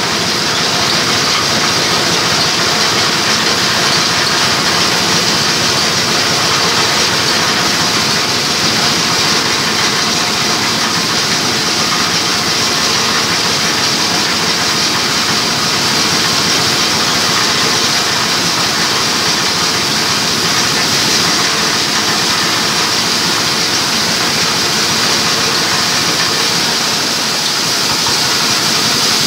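An 8 hp diesel engine running steadily, driving a multipurpose grinding mill for crop waste such as corn cobs, peanut shells and straw. Engine and spinning mill make one continuous, even din with a strong high hiss.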